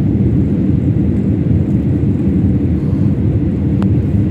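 Jet airliner cabin noise during takeoff and climb: a loud, steady low rumble of the engines and airflow.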